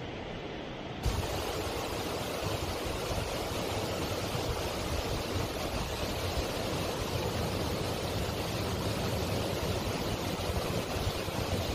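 A steady rushing noise with a low, uneven rumble beneath, growing brighter about a second in.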